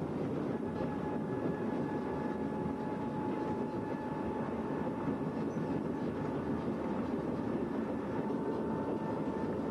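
A works drezine (motorised rail inspection trolley) running along the track: a steady mix of engine noise and wheels rolling on the rails, with a faint high whine held throughout.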